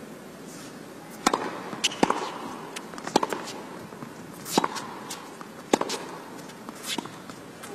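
Tennis rally: racquets striking the ball and the ball bouncing on the court, a string of sharp pops roughly every second over a low arena hush.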